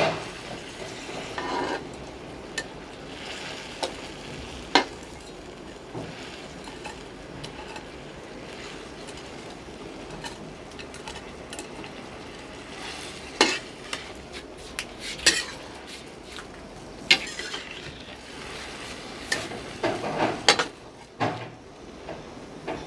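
Spoon stirring Maggi noodles in a kadhai over a steady hiss of cooking, knocking and scraping against the pan at irregular intervals, with a quick cluster of knocks near the end.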